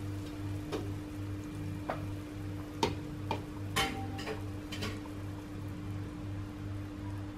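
Pot of soup simmering on the hob, with scattered pops and clicks over a steady hum and a low drone that pulses about twice a second.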